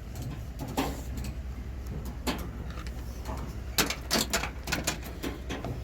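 A steady low rumble with scattered sharp clicks and clacks, several bunched together just before the four-second mark.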